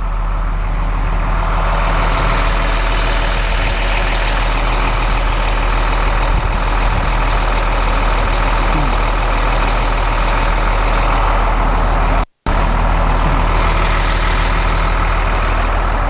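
Blue Bird bus's Caterpillar C7 7.2-litre turbo diesel engine idling steadily, with a brief break in the sound about twelve seconds in.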